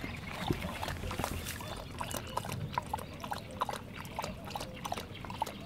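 A dog lapping water from a pond: a steady run of quick, wet laps with small splashes.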